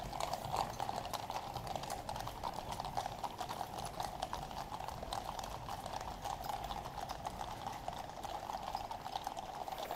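Shod hooves of a mounted troop of Life Guards' horses clip-clopping on the road, many hooves at once in a dense, irregular clatter.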